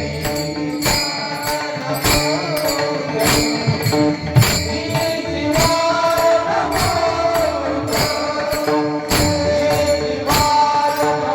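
Devotional kirtan music: held keyboard-like notes and a wavering melody over a steady beat of sharp jingling percussion strikes, a few a second.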